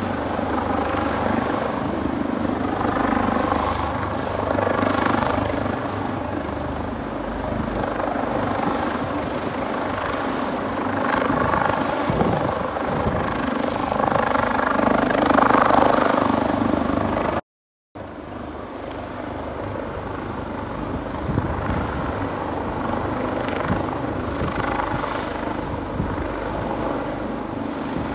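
Leonardo AW139 twin-turbine helicopter running close by: a steady rotor and turbine noise that swells and eases every few seconds. It cuts out completely for about half a second about two-thirds of the way through.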